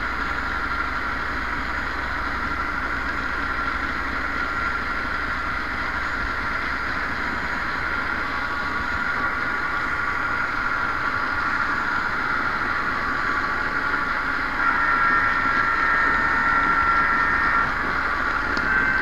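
Model train running along its track: a steady whine from its small electric motor and gears with rolling wheel noise, louder for a few seconds near the end.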